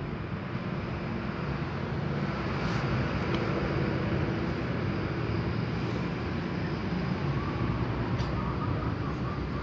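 Steady hum of road traffic, an even background rumble with no distinct events.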